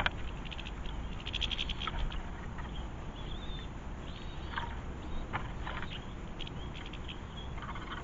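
Small garden songbirds chirping in short, rapid twittering bursts about every second, over a steady low background rumble. A brief sharp knock comes right at the start.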